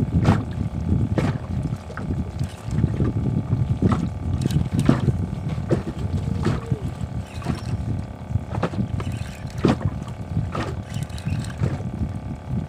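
Low rumbling water-and-boat noise aboard a small fishing boat, with sharp knocks or slaps about once a second.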